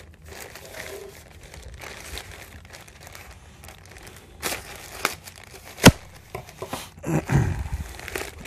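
Black plastic mailer bag being crinkled, cut and torn open by hand, with a few sharp clicks in the middle, the loudest about six seconds in. A louder rush of tearing and rustling plastic comes near the end.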